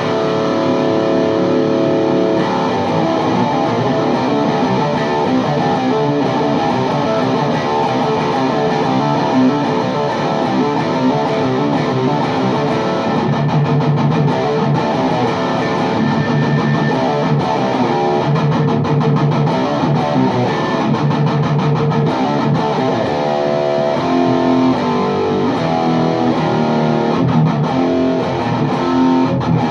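Gibson Les Paul Custom electric guitar played through a VHT Deliverance D60 tube amp head (two KT88 power tubes) into a Bogner 4x12 cabinet with Vintage 30 speakers, close-miked. Continuous playing of chords and single-note lines, with some chords held.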